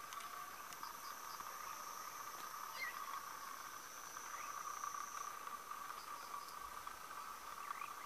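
Dusk chorus of caatinga insects and frogs: a steady, dense trilling, with a thinner high-pitched insect trill over it that stops about five seconds in. A few faint, short rising calls cut through the chorus.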